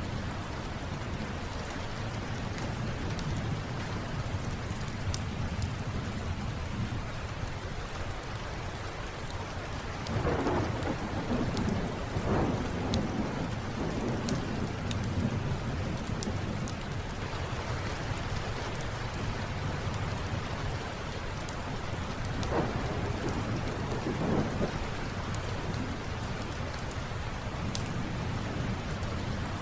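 Steady rain with thunder rumbling twice, about a third of the way in and again about three quarters through. Sharp crackles of a wood fire in a fireplace are scattered throughout.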